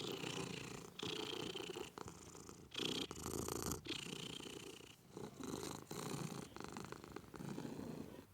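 Domestic cat purring, in repeated breaths of about a second each with short breaks between them.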